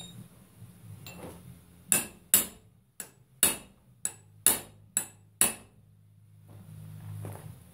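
Hammer blows on steel: a run of about eight sharp strikes, roughly two a second, knocking the steering arm off the front spindle of a Massey Ferguson 35.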